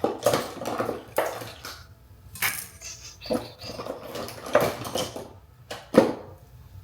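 Irregular clicks and clatters of small hard makeup items, such as compacts and brushes, being handled and set down while highlighter is applied. The sharpest click comes about six seconds in.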